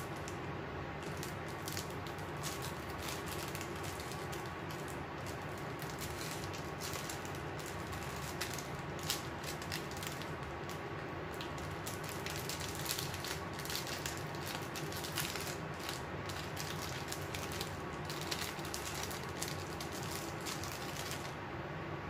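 An electric fan running steadily, under the crinkle and crackle of thin clear plastic bags being handled and opened. The crackles come thickest in the second half and stop shortly before the end.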